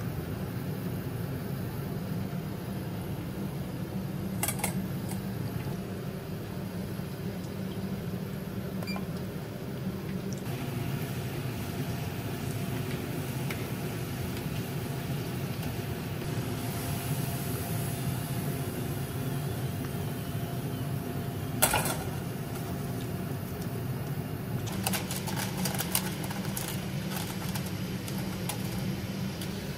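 Potato wedges sizzling in hot oil at 170 °C during their second deep-fry, over a steady low hum. Sharp clinks of a metal mesh strainer and tongs: one loud clink about two-thirds through and a quick run of clinks near the end.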